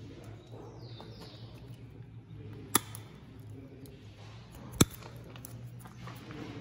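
Two sharp snips about two seconds apart, the second the louder, as twigs are cut from an elm bonsai with bonsai pruning shears, over a steady low hum.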